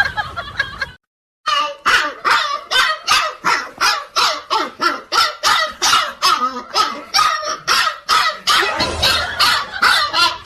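A dog barking rapidly and without a break, about three to four barks a second.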